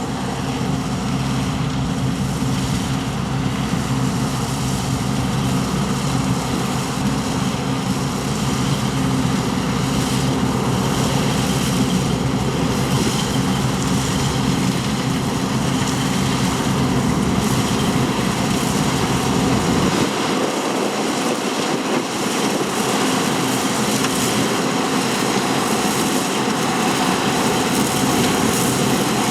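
Large diesel farm machinery running steadily, an engine hum over a broad mechanical whir from harvesting work. The deepest rumble drops away about twenty seconds in while the engine note carries on.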